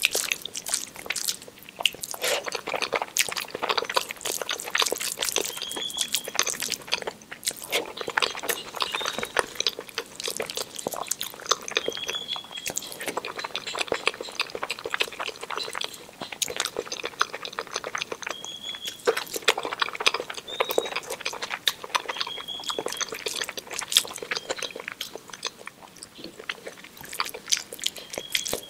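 Close-miked eating sounds of a person chewing soft rice, dal, mashed potato and omelette: irregular wet chewing and clicking mouth noises, with soft squishes of fingers mixing the rice.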